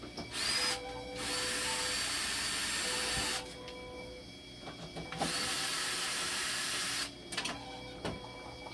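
K2 dialysis machine running under test, giving three bursts of hissing a few seconds apart, with a faint steady tone and small clicks between them.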